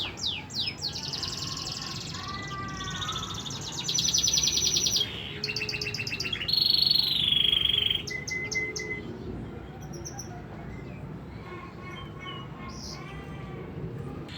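Domestic canary singing a long, varied song: quick falling notes, fast rattling trills, and a loud held note about seven seconds in that steps down in pitch, followed by softer twittering phrases.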